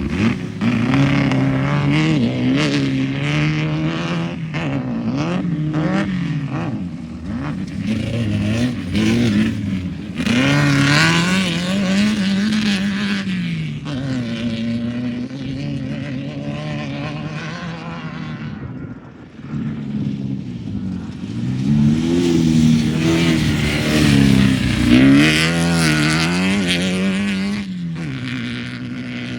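Off-road race vehicle's engine running hard, its pitch climbing and falling again and again as the throttle is worked, with a brief drop in loudness a little past halfway.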